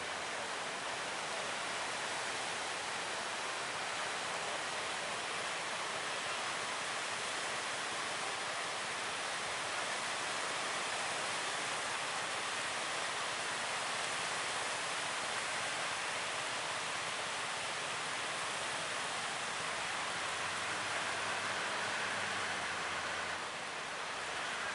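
Steady rush of breaking ocean surf, an even hiss of waves without let-up.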